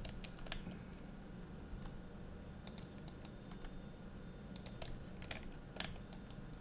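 Computer keyboard keys and mouse buttons clicking in short, scattered clusters, over a low steady hum.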